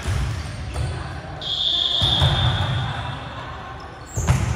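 Basketball dribbled on a hardwood gym floor in repeated low thuds. A high, steady tone sounds for about a second in the middle, and there is a sharp knock about four seconds in.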